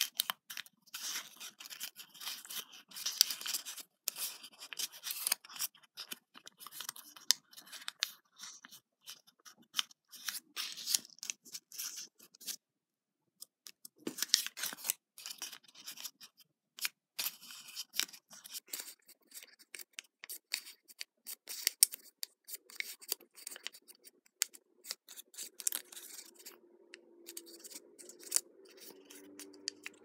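A small sheet of origami paper being folded and creased by hand into a plum blossom: irregular crisp crackling and rustling of the paper as the petals are pressed and shaped, with a brief pause a little before halfway.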